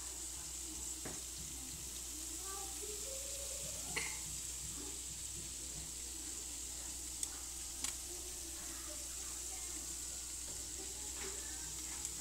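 Meatballs sizzling on a baking tray in a hot oven: a steady faint hiss with a few small clicks.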